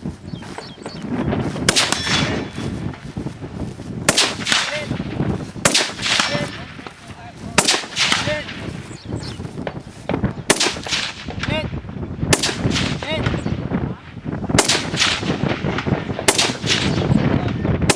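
Gunshots from a competition shooter's firearm: about a dozen single shots at an irregular pace, some in quick pairs and some a second or two apart, each followed by a short echoing tail.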